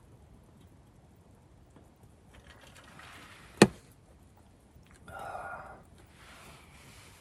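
Soft rustling and handling noise with one sharp click about three and a half seconds in, and a louder rustle or scrape about five seconds in.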